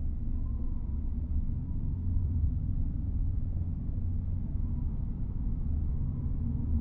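A steady low rumble, with no other distinct event.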